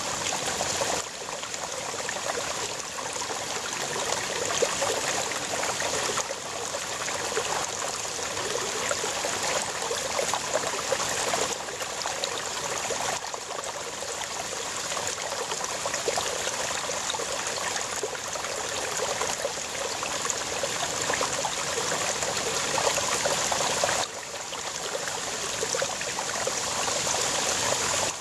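Shallow brook babbling over rocks: a steady rush of running water with fine trickling detail, its level stepping up or down abruptly a few times.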